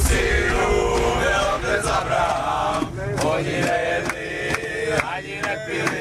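A group of hockey players singing and chanting together in a coach, several male voices at once.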